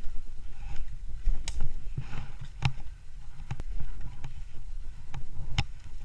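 Low rumbling movement and handling noise from an airsoft player's gear, with several sharp clicks or knocks at irregular spacing, roughly a second apart.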